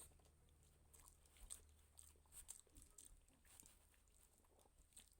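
Faint chewing and small wet mouth clicks of someone eating rice, a scatter of brief sounds over a low steady hum.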